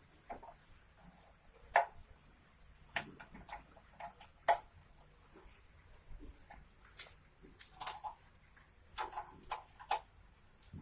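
Irregular sharp clicks and light knocks of hand work on a motorcycle, as the chain cover and its fasteners are fitted back on; the two loudest come about two and four and a half seconds in.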